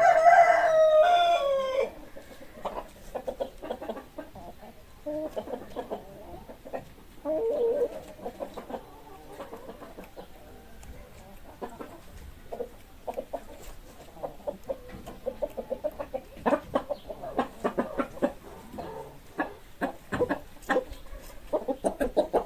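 A rooster crows once at the start, one long loud call that falls in pitch at its end. Chickens then cluck in short, scattered calls.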